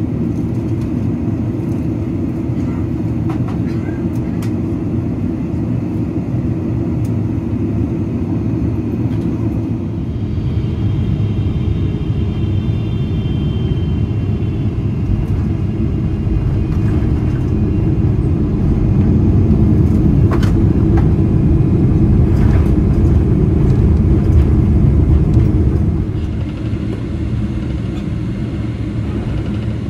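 Boeing 777-300ER cabin noise on final approach and landing: a steady low rumble of engines and airflow. It grows louder for several seconds past the middle, with a couple of knocks as the aircraft lands and rolls out, then drops back as it slows to taxi.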